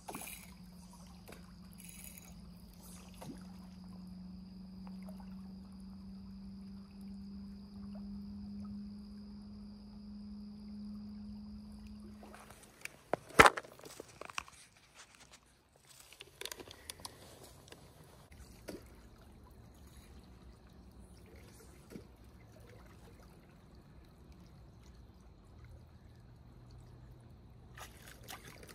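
Shallow river water trickling and flowing around a wading angler, with a steady low hum through roughly the first twelve seconds. About halfway a single sharp, loud click stands out, and a few faint ticks and splashes follow.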